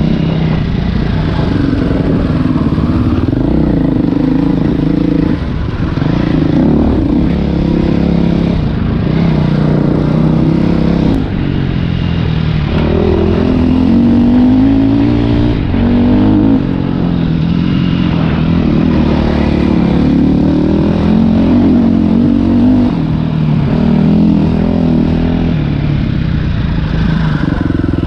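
Dirt bike engine running under load on a trail, its pitch rising and falling with the throttle, with a few brief drops in engine sound.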